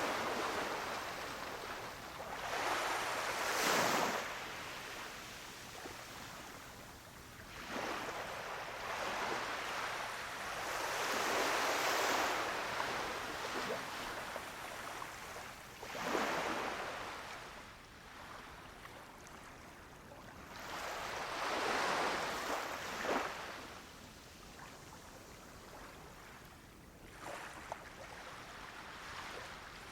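Small waves breaking on a sandy beach and washing back, one surge every four to six seconds, each swelling and then fading away.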